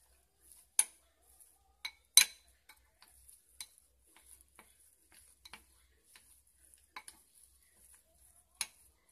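Metal spoon stirring minced chicken paste in a bowl, clinking and tapping against the bowl in irregular sharp knocks, the loudest about a second in, two seconds in and near the end.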